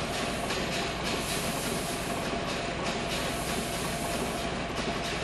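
Model horizontal steam engine running: a steady hiss with rapid, even ticking from its moving parts.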